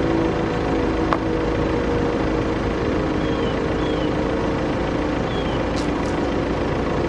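Steady outdoor hum of several low tones over an even rumble, with a few faint short chirps and a single click about a second in.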